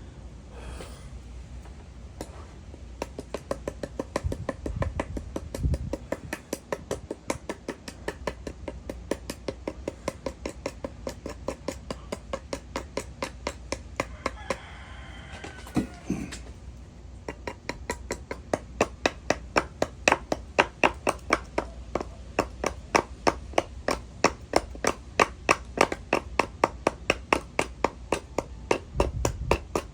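A rapid, steady series of sharp clicks or taps, several a second, growing louder after the midpoint.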